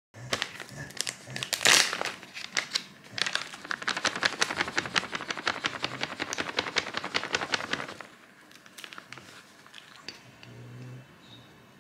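Plastic bag crinkling as kinako powder is shaken out of it: a dense run of crackles that grows quieter after about eight seconds.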